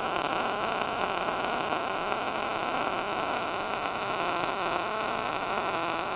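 MIG welding arc from a Titanium 140 welder running on straight CO2 shielding gas: a steady crackling hiss that holds unbroken as the bead is laid, with sparks of spatter flying.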